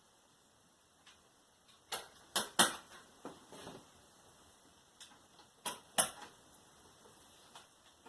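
Several sharp plastic clicks and taps, in two quick clusters, as the LED TV's plastic backlight standoffs are pressed into place.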